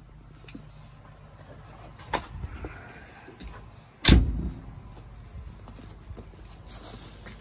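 Caterpillar D7R dozer's steel cab door, with a click about two seconds in, then the door slammed shut about four seconds in, the loudest sound, ringing briefly.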